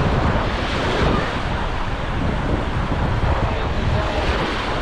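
Wind rumbling on the microphone over a steady wash of sea surf.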